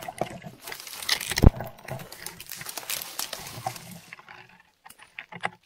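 Dense brush and leaves rustling and crackling, with clothing and gear scraping, as a person pushes through thick undergrowth carrying a rifle, with one sharp knock about a second and a half in. The rustling dies down after about four seconds, leaving a few light clicks.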